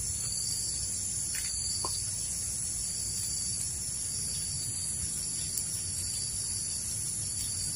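Steady high-pitched chorus of forest insects such as crickets or cicadas, with a low rumble beneath and a couple of faint short chirps a second or two in.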